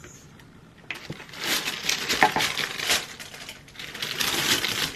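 Tissue paper crinkling and rustling as it is unfolded and pulled back inside a cardboard shoebox, starting suddenly about a second in and going on in several surges.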